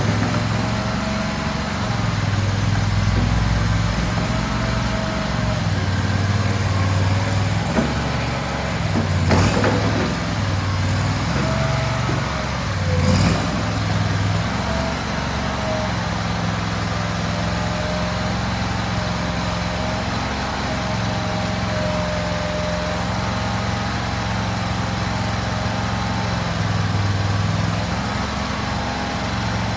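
Mini skid steer's small gasoline engine running steadily, its note shifting in strength as the machine moves and works. Two sharp knocks come about nine and thirteen seconds in.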